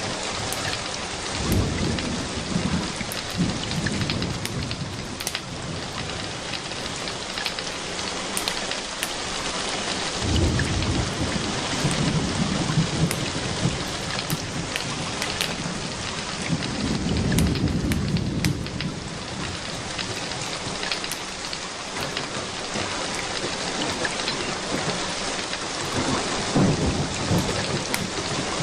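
Steady rain with low thunder rumbles rolling in several times, scattered with small sharp crackles.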